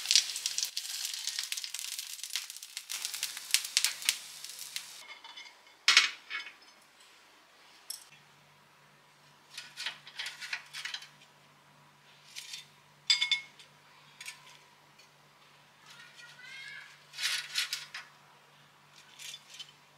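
Corn fritters sizzling in hot oil in a cast-iron skillet, the hiss stopping about five seconds in. Then scattered clinks and taps of a utensil and fritters being set down on a ceramic plate.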